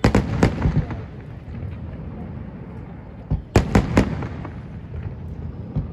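Aerial fireworks shells bursting over the water: a quick volley of sharp bangs at the start, another cluster of three or four about three and a half seconds in, and a single bang near the end.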